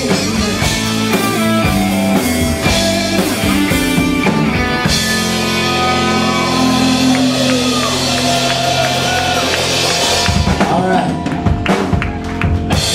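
Live rock band with drum kit, electric guitar and bass playing the close of a song. About five seconds in, the band holds a long sustained chord with a slow downward guitar slide, then finishes with a run of hard drum and cymbal hits near the end.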